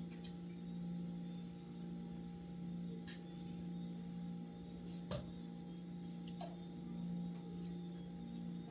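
A steady low hum, with a few soft clicks and scratchy strokes as a detangling brush is worked through a section of coily hair.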